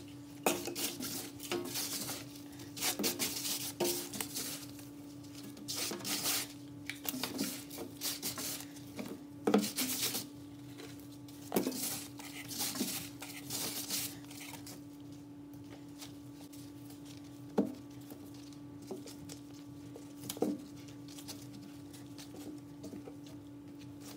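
Rubber-gloved hand rubbing and scraping powdered laundry detergent across a stainless steel sink bottom, in short gritty bursts through the first half or so, then only a few sharp knocks. A steady low hum runs underneath.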